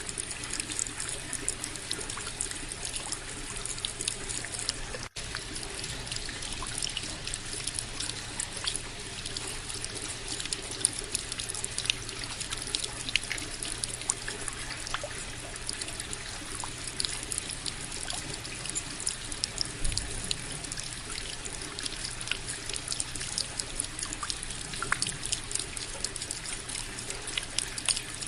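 Indoor decorative water fountain, water trickling and splashing steadily with many small droplet ticks. There is a momentary break in the sound about five seconds in.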